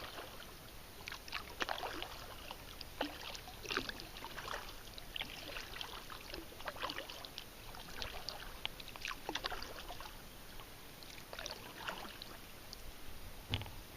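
Kayak paddle strokes in river water: irregular splashes and drips, about one or two a second, as the paddle blades dip in and lift out.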